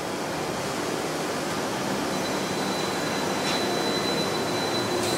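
Volcano: The Blast Coaster's inverted roller coaster train rolling slowly along its track, a steady rumbling hiss. A thin, steady high tone joins about two seconds in.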